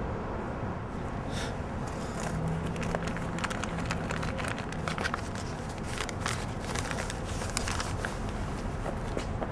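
Irregular rustling and light crinkling of something being handled, over a steady background of street noise.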